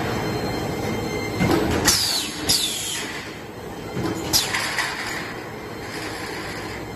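Stud and track roll forming machine running steadily, with three sharp bangs about two, two and a half and four and a half seconds in, each trailing off in a falling high hiss.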